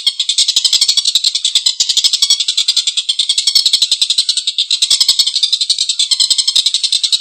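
Tengkek buto kingfisher calling in a long, harsh, rapid cackling chatter of many notes a second, with only brief breaks.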